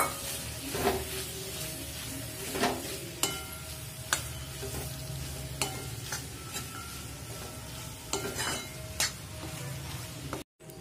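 A steel spoon stirring cooked peas into sizzling onion-tomato masala in a metal kadai. Irregular scrapes and clinks of the spoon against the pan sound over a steady frying sizzle.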